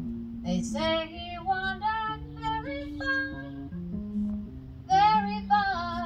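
A woman singing a wordless melody into a microphone over sustained chords from a Yamaha electric keyboard, heard live through PA speakers. The voice enters about half a second in, pauses around the middle, and comes back louder near the end.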